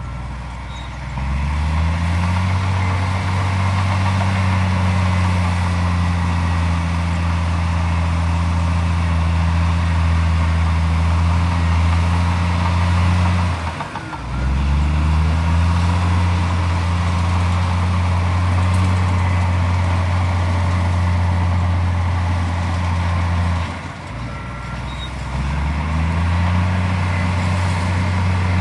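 Diesel engine of a Komatsu D41P bulldozer running hard. Three times, about ten seconds apart, it briefly drops off and then revs back up to a steady working speed, as the machine changes between pushing and backing.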